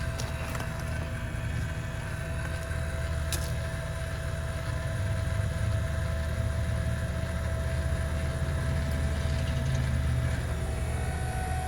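Powered trailer tongue jack's electric motor running steadily, lifting the hitched trailer tongue and the back of the truck. A steady whine sits over a low hum and rises slightly near the end as the load comes off the hitch bars.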